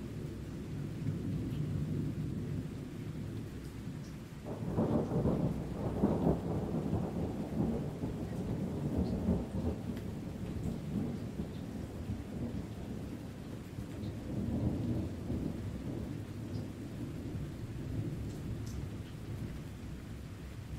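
Deep rolling thunder over steady rain. A louder peal begins about four seconds in and rumbles away over several seconds, with a smaller swell of thunder later on.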